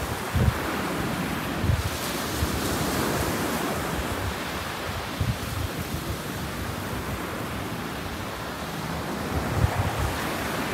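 Ocean surf breaking and washing up a sandy beach, a steady rushing wash, with wind buffeting the microphone in irregular low gusts.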